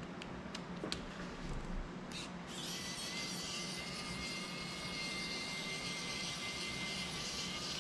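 A small electric screwdriver motor whines steadily for about five seconds, starting about two and a half seconds in, as it drives screws in an FPV drone's frame. Before it come a few light clicks of the tool against the frame.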